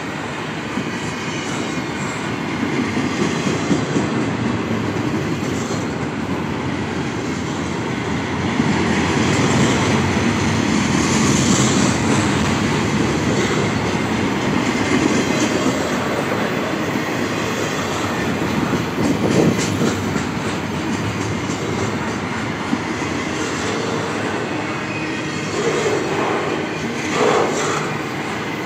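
Intermodal freight train's container cars rolling past at close range: a continuous rumble and clatter of steel wheels on the rails.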